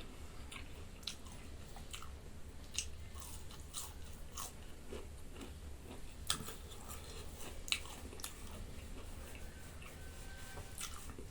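Close-miked chewing and wet mouth clicks of someone eating dal bhat, irregular sharp smacks a few times a second. A low steady hum runs underneath.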